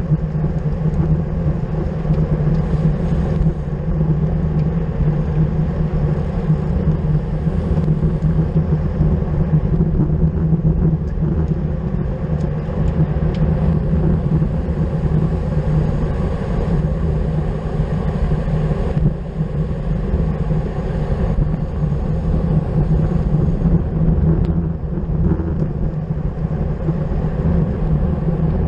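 Steady rush of wind over the microphone of a camera riding with a racing bicycle at speed, a loud, unbroken rumble with road and tyre noise mixed in.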